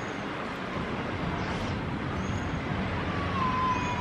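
Road traffic noise, a steady rumble and hiss of passing vehicles that swells slightly, with a faint whine sliding down in pitch near the end.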